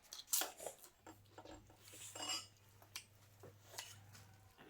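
Kitchen utensils clinking against pots or dishes: a series of irregular sharp clinks, the loudest just after the start.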